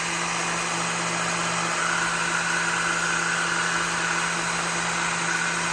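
Work Sharp belt knife sharpener with the Ken Onion blade grinding attachment running steadily at a turned-down speed, its motor and belt humming. A higher, steady whine joins about two seconds in.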